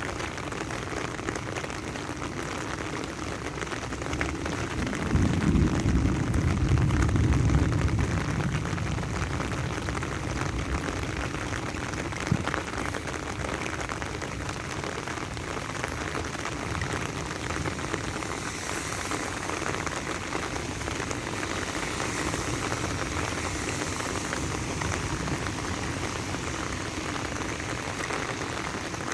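Steady rain falling, a continuous even hiss. About five seconds in a louder low rumble swells for a few seconds and fades, and a single sharp tick comes near the middle.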